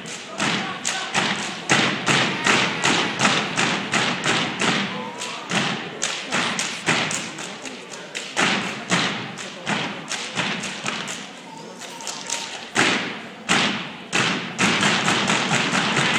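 Step team stomping and clapping in unison, a rhythm of sharp hits several per second. Near the end the crowd starts cheering.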